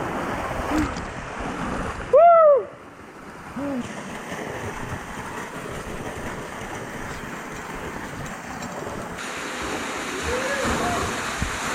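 Steady rush of canyon water, with a person's loud, short rising-then-falling shout about two seconds in and a few fainter short calls.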